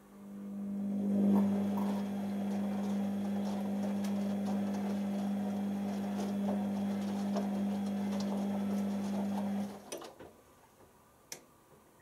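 Beko WM6103 washing machine's drum motor humming steadily as it turns the drum in a pre-wash tumble, with the rustle of wet laundry falling inside. The drum stops after about ten seconds, followed by a few light knocks and a single click.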